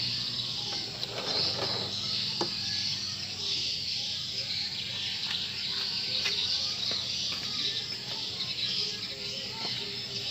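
Steady high-pitched insect chirring, with a low steady hum under it and a few light clicks scattered through.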